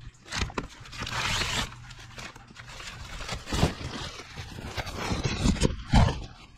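Plastic wrapping and a paper-and-plastic pet pee pad rustling and crinkling as the pad is taken from its pack and spread into a plastic toilet tray, with a few dull knocks, the loudest near the end.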